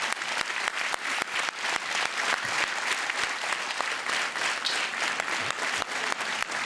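Theatre audience applauding: many people clapping together in a dense, steady sound with no break.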